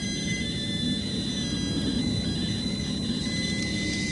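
Steady low rumble of idling vehicle engines and passing highway traffic, with faint steady high-pitched tones over it.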